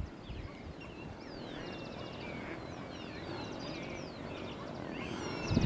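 Several small birds chirping and trilling together, short sweeping notes mixed with quick buzzy trills, over a low steady outdoor background.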